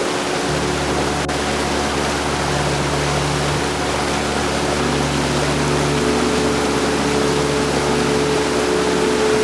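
Heavy rain falling steadily in a dense, even hiss, with a faint low steady hum beneath it.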